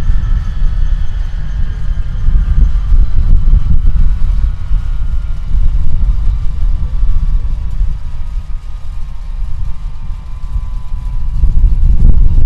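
Rolls-Royce Spey turbofan engines of a Hawker Siddeley Nimrod MR2 running, heard from behind the exhausts. A deep rumble swells and eases under a whine that falls slowly in pitch as the engines spool down.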